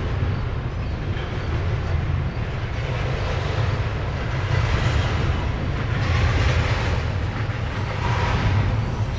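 Double-stack intermodal freight cars rolling past: a steady low rumble of steel wheels on rail, with the rolling noise swelling a little past the middle.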